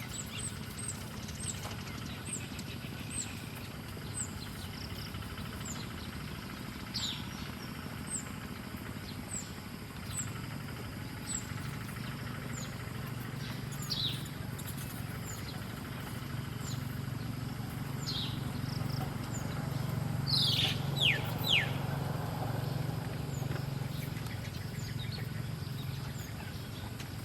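Small wild birds calling: a thin, high chirp repeated about once a second, with a few louder calls sweeping down in pitch, three in quick succession near the end. A steady low hum runs underneath.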